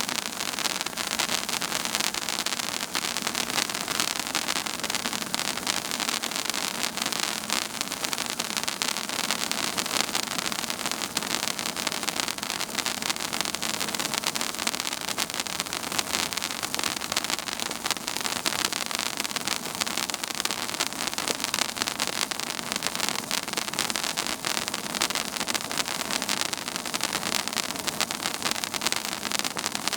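Silver-cascade firework fountain burning, a steady hiss of spraying sparks with many fine crackles throughout.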